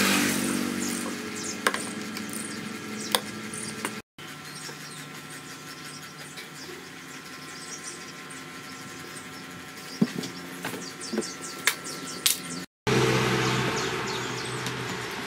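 Sharp metal clicks and taps of a hand tool working on a backpack power sprayer's pump fittings. About thirteen seconds in, the sound jumps to the sprayer's small petrol engine running steadily.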